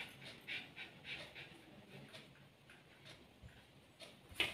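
A few faint, soft pats and squishes of hands kneading a wet flour dough on a plate as more flour is worked in, mostly in the first two seconds.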